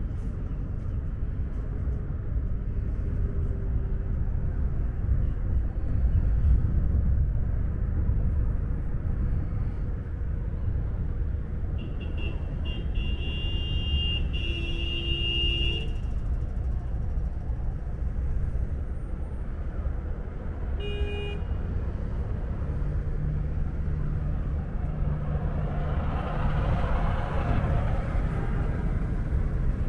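Steady city street traffic rumble, with a vehicle horn sounding for a few seconds about halfway through and a short toot a few seconds later, and a vehicle passing close near the end.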